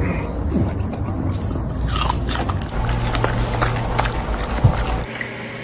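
A Shiba Inu chewing raw broccoli: a run of many short, crisp crunches and chomps.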